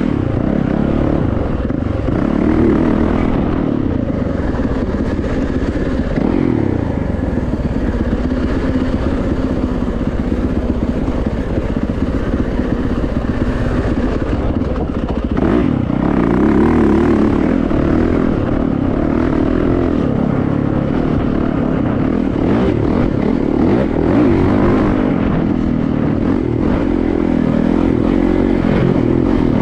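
Yamaha YZ450FX four-stroke single-cylinder dirt bike engine running under load on trail, its pitch rising and falling with the throttle.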